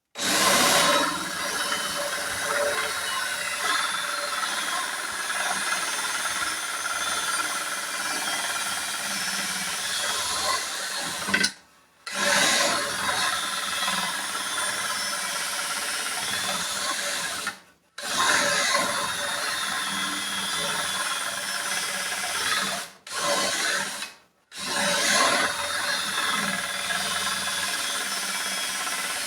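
Battery-powered drill running with a homemade hand-forged drill bit as it bores a hole, stopping briefly four times before starting again.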